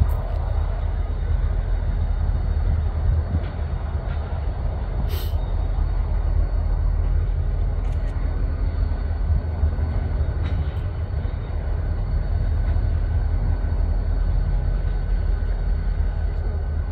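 EMD GP40-2 diesel-electric locomotives running as they roll slowly into a spur track, a steady low rumble. There is a brief sharp high-pitched sound about five seconds in.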